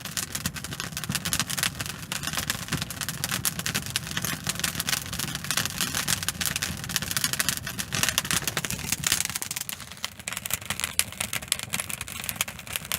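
Wood fire of birch bark and hardwood kindling burning, crackling densely and without a break.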